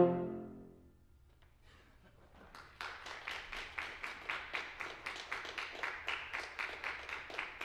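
The final chord of two euphoniums and piano cuts off and rings away in the hall over about a second; after a short hush an audience starts applauding about two and a half seconds in, settling into steady clapping.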